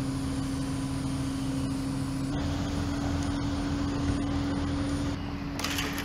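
Crane engine running steadily while the mast is held and lowered, a level drone whose pitch steps up slightly about two seconds in and drops back about five seconds in. A brief rustle comes near the end.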